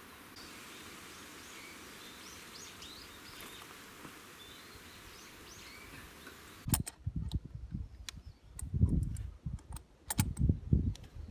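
Birds chirping over a quiet outdoor background. About two-thirds of the way in, irregular loud low rumbles with sharp clicks take over.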